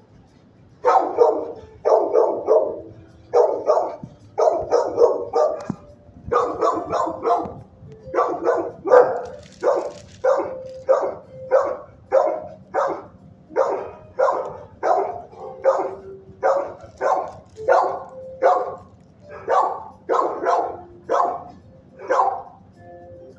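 A dog barking over and over, about one to two barks a second, starting about a second in.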